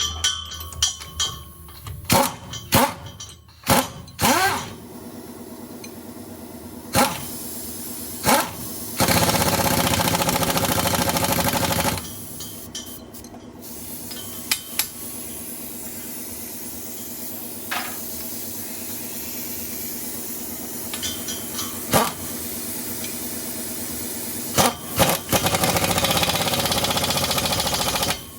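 Single-cylinder diesel engine of a công nông farm truck running steadily, with sharp metal knocks and clanks, mostly in the first few seconds, and a louder rush of noise for a few seconds about nine seconds in and again near the end.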